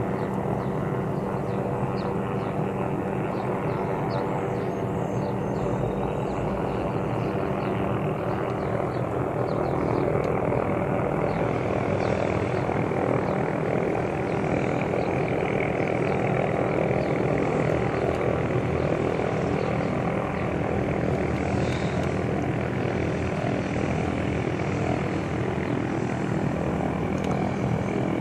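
Helicopter hovering overhead: a steady drone of engine and rotor that grows somewhat louder about ten seconds in and then holds.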